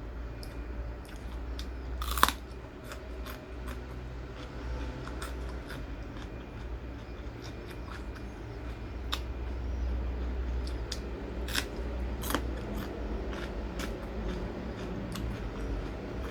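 A person chewing and crunching food close to the microphone, with scattered crisp clicks of bites, the sharpest about two seconds in.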